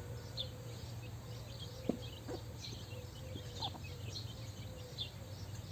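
Small birds chirping now and then in short high calls over a steady low hum, with a couple of faint knocks about two seconds in.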